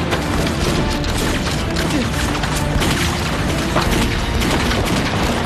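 Repeated gunfire and booms from a staged rifle firefight, the shots coming thick and close together, laid over dramatic background music.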